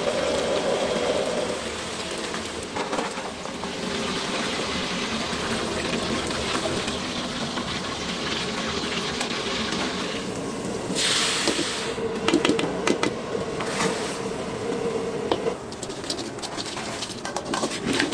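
Battered chicken pieces deep-frying in a pot of oil, a steady sizzle and bubbling. About eleven seconds in there is a short loud rush as the wire frying basket is lifted out and the chicken tipped onto a steel tray, followed by metal clatter and scraping.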